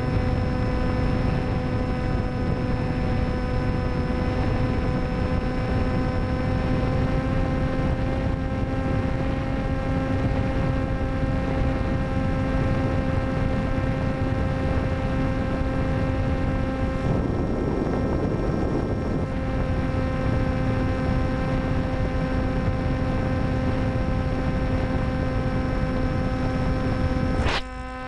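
Electric motor and 10x6 folding propeller of an FX-61 Phantom flying wing running at a steady cruise throttle, heard from the onboard camera: a steady, even hum with rough wind rush underneath. The sound briefly drops out just before the end.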